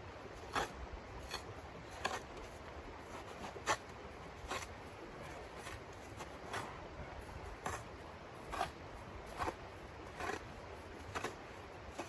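A small plastic snow shovel scraping and scooping crusty snow, in short strokes roughly once a second.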